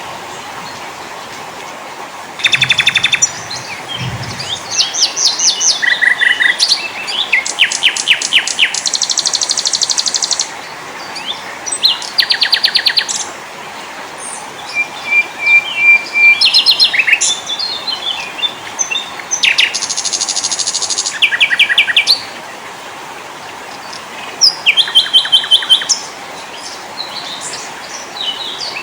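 Small songbirds singing in a mix of fast, high-pitched trills and chirps. The phrases come in bursts of one to two seconds with short pauses between them, over a steady background hiss.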